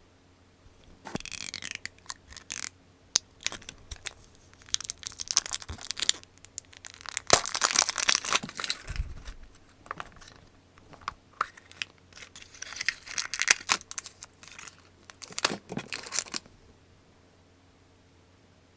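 Plastic wrapper of a collectible figure packet being crinkled and torn open by hand, in irregular bursts of crackling that stop a couple of seconds before the end.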